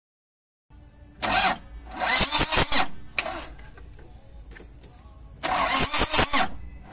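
Toyota Hiace diesel engine being cranked by its starter in two bursts, about a second in and again near the end, with a quick rhythmic chug but not catching. This is a hard start, which the mechanic puts down to a weak battery.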